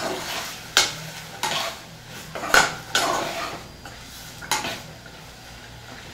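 Metal spoon clanking and scraping against a cooking pot while stirring a tuna, pea and corn filling, about six sharp knocks at uneven intervals, with the filling sizzling faintly in between.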